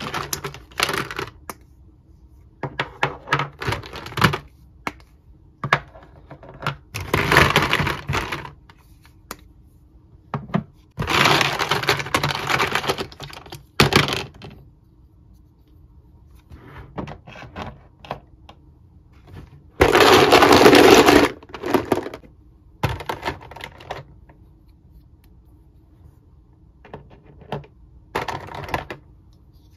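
Hard plastic Mr. Potato Head toy parts rattling and clattering against each other and the sides of a plastic storage bin as hands rummage through it. The clatter comes in several bursts a few seconds apart, with scattered single clicks in between.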